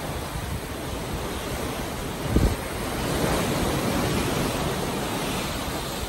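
Sea water rushing and churning along the hull of a moving ship, mixed with wind on the microphone. There is a low thump about two and a half seconds in, and the rush swells a second later.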